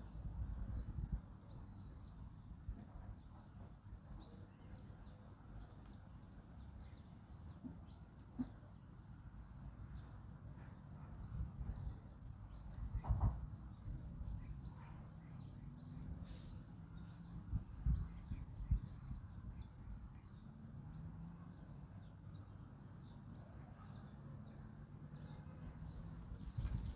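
Small birds chirping in quick, scattered calls throughout, over a low rumble of wind. Stronger low gusts come about a second in, near the middle, and around two-thirds through.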